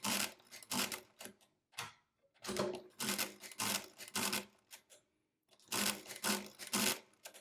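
Hamann Manus Model A mechanical calculator being hand-cranked for a multiplication: its gears and carriage clatter and click in three bursts as the crank is turned over and over.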